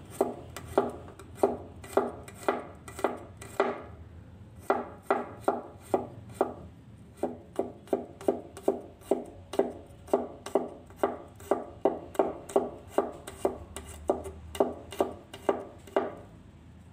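Cleaver slicing garlic cloves on a wooden cutting board: a steady run of blade knocks on the board, about two or three a second, with a couple of short pauses, stopping shortly before the end.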